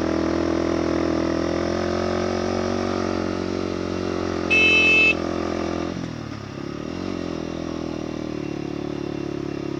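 Motorcycle engine pulling steadily under load up a steep climb, with one short honk of its horn about four and a half seconds in. The engine note dips briefly around six seconds in, then settles back to a steady pull.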